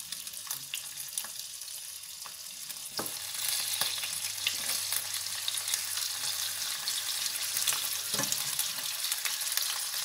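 Pieces of adobo chicken, already boiled in their marinade, sizzling as they fry in a frying pan, with a few clicks of tongs against the pan. The sizzle grows louder about three and a half seconds in as more pieces go into the pan.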